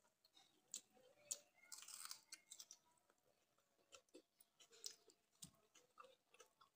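Faint close-up eating sounds: wet chewing with small mouth clicks, and soft squishes of fingers mixing panta bhat, rice soaked in water, in a steel bowl.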